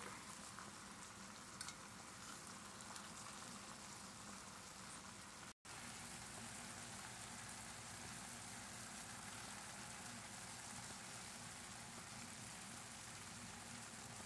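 Food sizzling steadily in skillets on a stovetop: black beans with peppers, then Spanish rice simmering in its broth. The sizzle is low and even, with a brief break about six seconds in where the sound cuts out.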